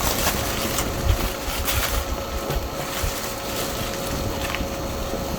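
Rustling and crinkling of packing material as a computer is unpacked from its shipping box, with sharper crackles near the start and just before two seconds in, over a faint steady hum.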